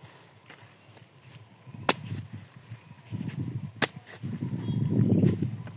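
Plastic mulch film being punched by a hand-held cylindrical hole cutter on a pole: a sharp snapping pop each time the cutter breaks through, about every two seconds. A low rustling rumble builds up between pops, loudest about a second before the last one.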